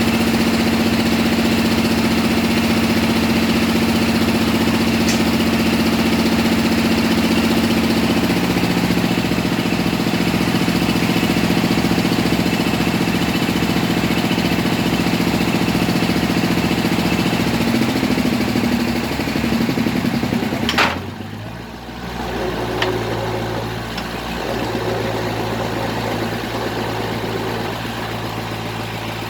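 Engine of a bored-pile drilling rig running steadily. About twenty seconds in, its note wavers and shifts. After a sharp click it settles into a lower, slightly quieter running note.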